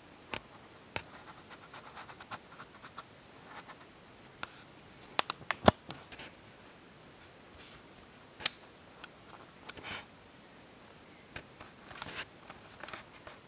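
Camera handling noise: scattered clicks and short scratching sounds, with a quick run of sharp clicks about five seconds in.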